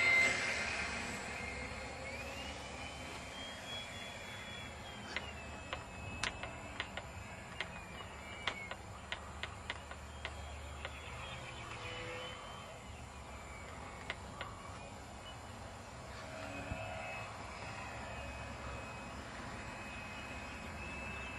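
Small radio-controlled model plane's motor whining loudest at the hand launch, then a thinner whine that rises and falls in pitch as the plane flies about. A run of sharp clicks comes in the middle, with a couple more a little later.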